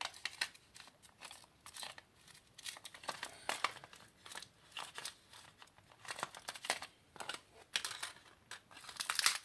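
Irregular crinkling, rustling and clicking of things being handled close to the microphone, with a louder crackling burst near the end.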